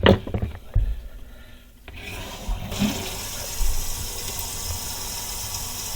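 A couple of sharp knocks, then water starts running about two seconds in and goes on as a steady hiss.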